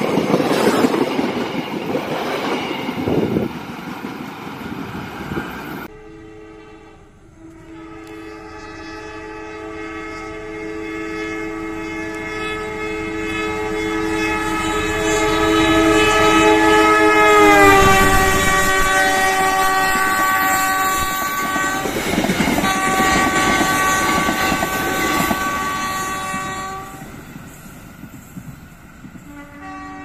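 Coaches and wheels of a passing train rushing by close at hand. Then an Indonesian KAI diesel-electric locomotive sounds a long multi-note horn, the semboyan 35 signal, as it approaches. The chord drops in pitch as the locomotive passes, breaks off briefly and resumes, then stops near the end while the wheels clatter on.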